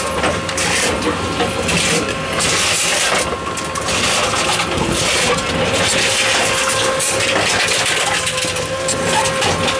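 Tomra T-63 reverse vending machine running as it takes in and crushes plastic bottles: a loud, continuous crackling noise over a steady machine hum.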